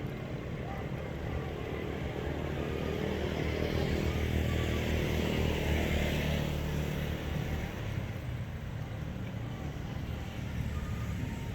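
A motor vehicle passing close by: its engine drone and road noise swell to a peak about halfway through, then fade.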